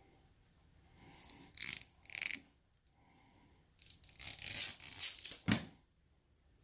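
Scored plastic insulation being torn open and peeled off copper wire by hand: two short rips, then a longer rough tearing stretch of about two seconds that ends in a knock.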